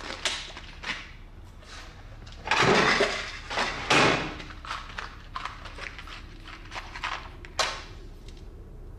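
Rustling and a few knocks and clatters as objects are handled and dropped into an open metal drum. The loudest is a longer rustle about two and a half seconds in and a sharp knock about four seconds in, with smaller clicks after.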